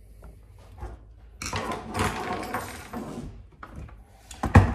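Hard plastic scraping and rubbing for about two seconds as an RC truck's moulded inner fender is worked into place on the chassis, then a quick run of sharp knocks near the end.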